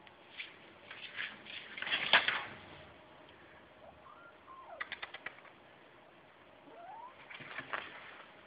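A kitten's claws scratching and clicking on a windowsill and catching in curtain fabric, in irregular clusters, loudest about two seconds in, with a quick run of clicks around the middle. Two faint short squeaks slide in pitch, one falling and one rising.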